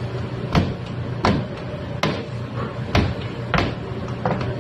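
Wooden rolling pin working pizza dough on a metal sheet tray: a sharp knock or thud with each stroke, about one every 0.7 seconds, over a steady low hum.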